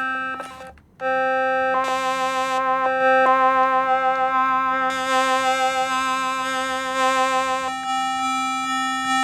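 Yamaha Handysound HS-500 mini keyboard playing held notes and chords on its hidden in-between preset, got by setting the instrument slider between two of its five sounds. The tone wavers in pitch, and new notes join the chord a few times.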